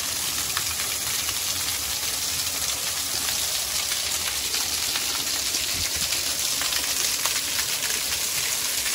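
Water flowing and rushing steadily, a constant hiss with no let-up.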